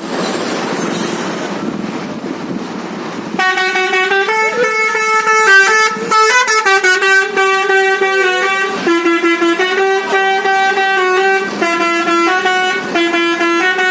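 Telolet horn on an Indonesian bus: a multi-tone musical air horn playing a stepping melody of long notes. It starts about three seconds in, after a stretch of steady noise.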